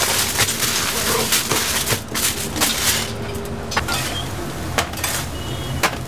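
Plates and utensils clinking and knocking in a busy snack-stand kitchen, with a loud hiss that drops away about two seconds in.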